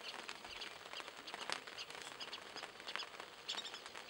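African wild dogs feeding on an impala carcass: scattered sharp clicks from tearing and chewing, with short high chirps now and then, a brief cluster of them about three and a half seconds in.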